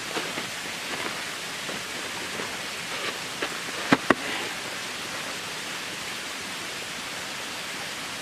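Steady rush of water from a partly frozen waterfall, running beneath the ice. About four seconds in there are two sharp knocks in quick succession.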